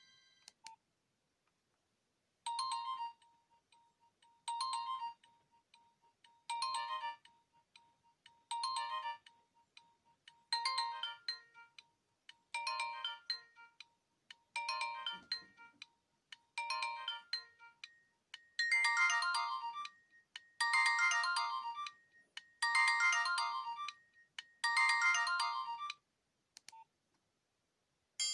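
Nokia 1661 mobile phone ringtone playing through the phone's speaker: a short electronic phrase repeated about every two seconds. About two-thirds through, the phrase becomes fuller and louder with more notes, then it stops.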